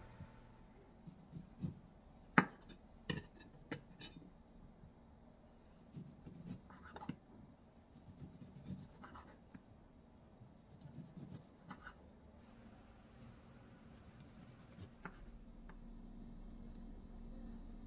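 Light kitchen handling: scattered sharp taps and knocks, the loudest about two and a half seconds in, with soft scraping and rubbing between them. A low steady hum comes in near the end.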